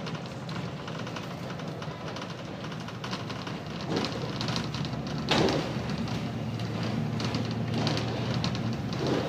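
Volvo B7TL double-decker bus's six-cylinder diesel engine running under way, with a steady low drone that grows fuller about halfway through, mixed with road noise and body rattles. A few knocks or bumps come through, the loudest about five seconds in.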